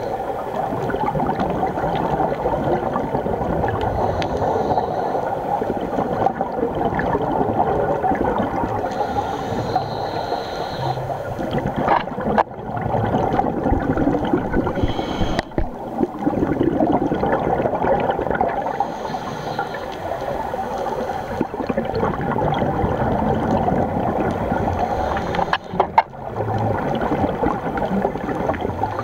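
Muffled underwater gurgling and water noise picked up by a dive camera, the kind made by a scuba diver's regulator bubbles, with a few sharp clicks.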